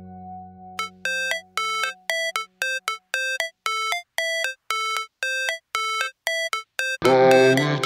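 Background music. A sustained chord fades out, then short pitched notes repeat evenly, about three a second, and a fuller, louder passage comes in near the end.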